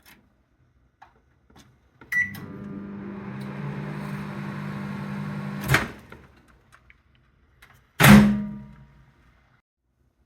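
Samsung MS23K3614AW 800 W microwave oven: a click and a short beep about two seconds in, then the oven running with a steady hum for about three and a half seconds, ending with a click. About two seconds later comes a single loud clunk, the loudest sound here.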